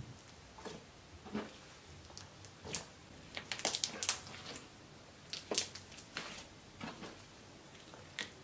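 Slime being squeezed and poked by hand: irregular wet squishes and sticky clicks, with a quick run of crackling pops about four seconds in.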